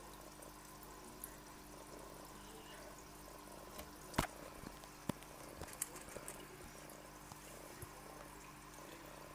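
Small aquarium filter running: faint steady trickle of water with a low hum. A few light clicks and taps come over it, the sharpest about four seconds in.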